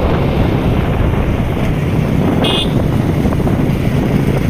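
Wind rushing over a phone microphone on a moving motorcycle, mixed with the bike's running engine. A brief high-pitched tone sounds about halfway through.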